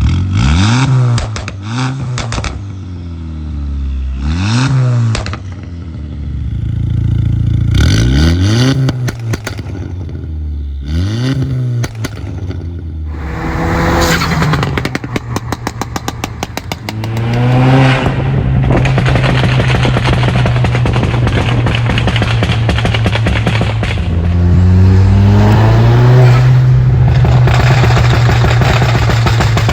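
Tuned Audi A4 turbocharged four-cylinder engine blipped up and down several times, with sharp pops and rapid crackles from the exhaust as the revs fall: the overrun pops of a Stage 2 tune. In the second half the engine runs steadily at higher revs, rising once more near the end.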